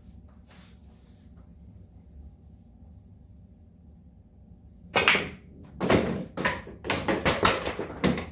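Pool balls on a billiard table: a sharp clack as the shot is struck into the three-ball cluster about five seconds in, then a quick run of knocks and clatters over the next few seconds as the balls hit the cushions and drop into the pockets.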